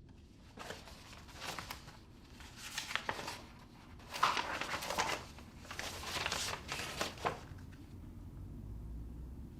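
Irregular crinkling and rustling, a series of short noisy handling sounds, over a low steady hum.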